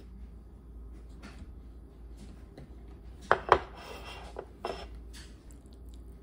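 A small dish set down on a table beside a bowl, two sharp clinks a little over three seconds in, with lighter taps of tableware and wooden chopsticks around them.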